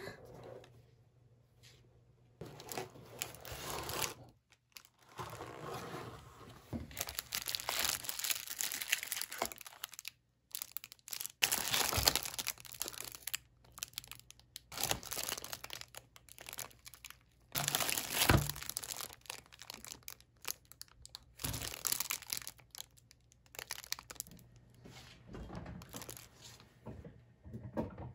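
Crinkling of the thin plastic wrappers around individually bagged cream buns as they are handled and lifted out of their box, in irregular stretches with a couple of louder knocks.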